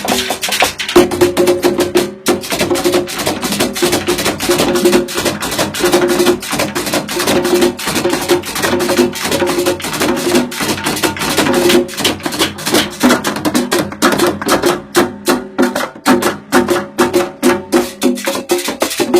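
Music driven by fast, dense percussion, with a short repeating pitched figure underneath.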